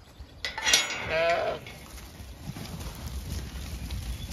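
A Zwartbles sheep gives one wavering bleat about a second in, just after a short sharp clatter. Then comes the low scuffle of the flock's hooves as the sheep run past.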